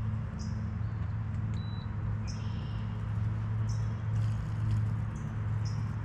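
Steady low hum of the pontoon boat's motor, with a bird's high, falling chirp coming five times, a second or so apart.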